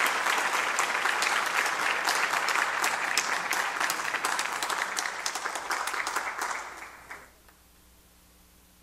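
Applause from a room of people, many hands clapping steadily, dying away about seven seconds in.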